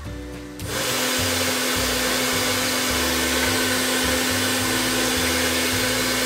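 Handheld hair dryer switched on about half a second in, then blowing steadily with a constant hum, run as a load on a homemade pure-sine inverter.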